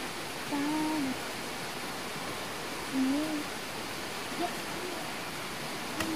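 Steady rushing of a river below, with a few short, low, wavering calls about half a second in and about three seconds in, and a sharp click near the end.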